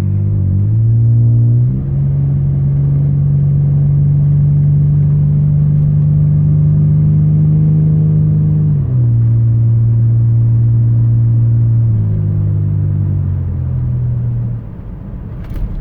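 Straight-piped 2001 Toyota 4Runner exhaust, with a home-built Helmholtz resonator, pulling uphill under load: a deep steady drone whose pitch steps up twice in the first two seconds, steps down about nine and twelve seconds in, then eases off and goes quieter near the end.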